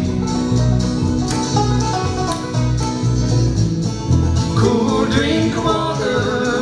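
Live bluegrass band playing a tune on upright bass, acoustic guitar and five-string banjo. Plucked bass notes sit under strummed guitar and banjo picking.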